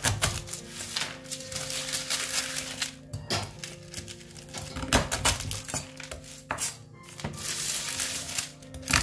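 A knife blade pressing down through a slab of hard-set peanut brittle, with repeated sharp cracks and crunching as the hard caramel breaks, and the blade scraping over parchment paper. Background music plays underneath.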